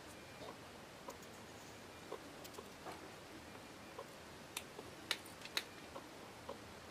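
Faint small clicks and taps of a brass lantern pump plunger and a homemade pump cup being handled and fitted together by hand, with a few sharper clicks about two thirds of the way in.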